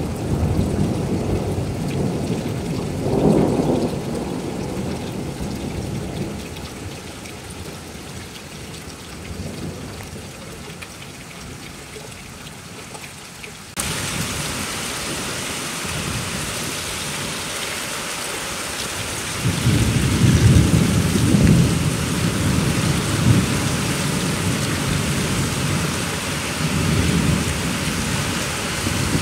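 A thunderstorm: rain falling steadily while thunder rumbles. A long roll of thunder dies away over the first several seconds. About halfway through, the rain suddenly becomes a louder hiss, and from about two-thirds of the way in another long roll of thunder rumbles, with a further rumble near the end.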